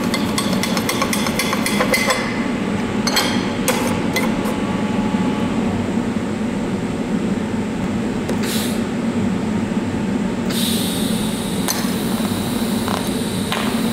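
Light metallic clicks and clinks in the first few seconds, then about ten seconds in a TIG welding arc strikes on brass and runs with a steady high hiss for a touch-up pass on the weld. A low hum runs under it all.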